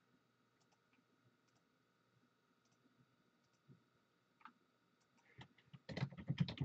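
Quiet handling of trading cards, with a few faint ticks, then a quick cluster of clicks and rustles near the end as the next card is pulled from the stack.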